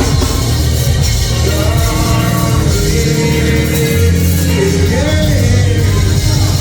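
Gospel singing with church band accompaniment: a voice holding long notes and sliding between them over a steady, heavy bass.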